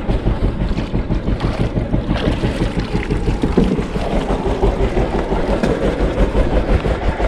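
Boat engine running steadily at idle with an even low throb, as two wooden boats come alongside each other, with wind buffeting the microphone.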